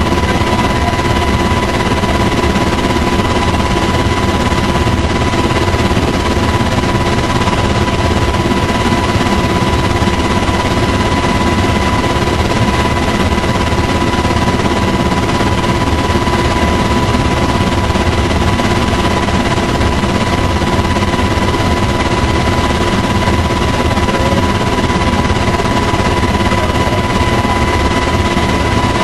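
UH-60 Black Hawk helicopter in flight, heard from inside the cabin: loud, steady rotor and engine noise with a fast, even chop and a constant high-pitched tone.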